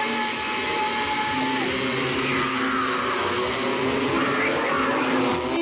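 A pack of racing Vespa scooters' two-stroke engines running together at high revs, a dense steady buzz that cuts off abruptly at the end.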